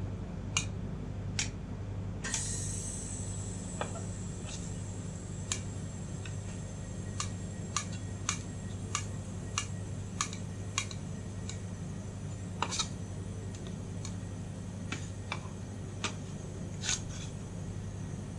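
Steel spatulas scraping and clicking sharply against a steel ice cream cold plate as frozen sheets of ice cream are pushed into rolls, with irregular clicks about a second apart. A steady low hum runs underneath.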